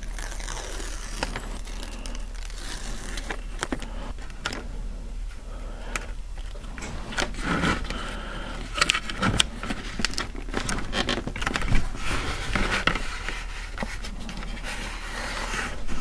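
Hands pressing thin adhesive craft foam strips into a typewriter's upper body shell: irregular scraping and rustling with small clicks and taps as the shell is handled.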